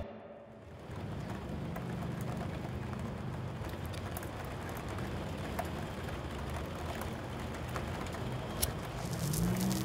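A steady, even hiss with a low hum underneath and a few faint clicks scattered through it.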